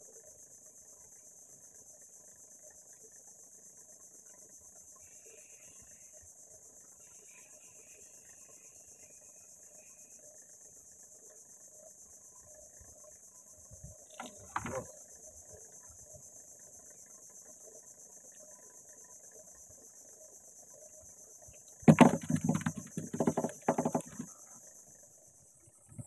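Insects droning in a steady, high-pitched continuous buzz. A few sharp clicks come about halfway through, and a loud flurry of knocks and rattles comes near the end.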